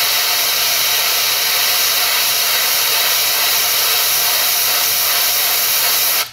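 Airbrush spraying paint: a steady, loud hiss of air from the nozzle that cuts off suddenly near the end.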